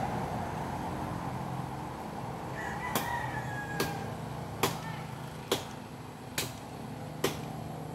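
Hand-chopping into a tree trunk: six sharp blows of a blade into wood, evenly spaced a little under a second apart, starting about three seconds in.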